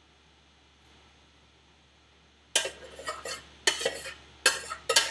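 A utensil scraping and knocking against the inside of a stainless steel saucepan as the last of the cooked polenta is cleared out of it. There are four short bouts of clatter, beginning about two and a half seconds in.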